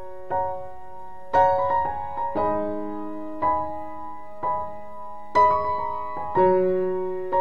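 Background piano music: soft chords struck about once a second, each left to ring and fade, with a few quicker notes in between.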